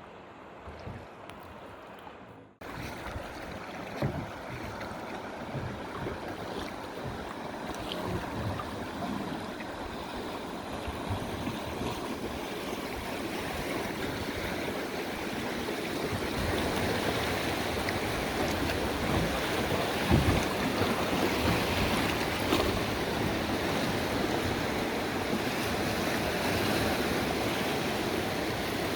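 Rushing whitewater of river rapids: a steady rush that builds louder as the boat runs through, with a few sharp knocks.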